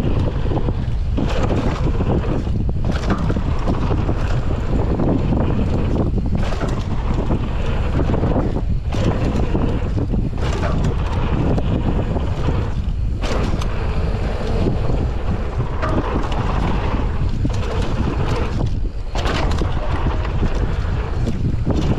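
Heavy wind buffeting the microphone during a fast e-mountain-bike descent on a dirt trail, over the low rumble of the tyres on the dirt. The rushing noise stays loud throughout, dipping and surging every few seconds.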